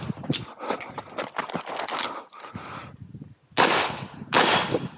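Rapid footsteps crunching on dirt and gravel while running between shooting positions, then two pistol shots fired from a red-dot-sighted handgun near the end, a little under a second apart, each with a sharp ringing tail.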